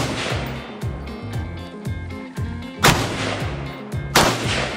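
Two AR-15 rifle shots about three and four seconds in, about a second and a half apart, each a sharp crack with a ringing echo. Background music with a steady beat plays underneath.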